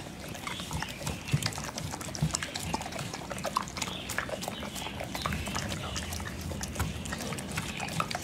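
A chocolate Labrador chewing and licking a whole red dragon fruit: an irregular run of wet smacks, squelches and clicks from its mouth.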